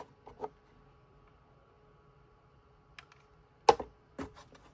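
Scattered sharp plastic clicks and knocks from a wireless mouse and keyboard being handled, a couple early on and a cluster in the second half, the loudest a single knock near the end, with a faint steady hum between.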